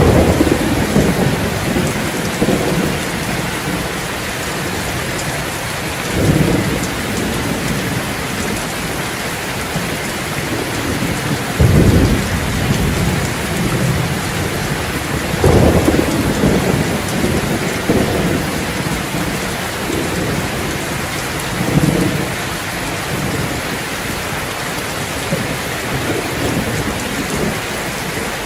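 Steady rain falling on surfaces, with low thunder rumbling again and again over it; the loudest rolls come about twelve and fifteen seconds in.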